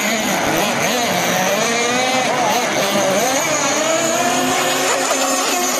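Engine-powered radio-controlled speedboat running flat out across the water with a high-pitched, screaming engine note. Its pitch wanders up and down as the throttle and the boat's course change.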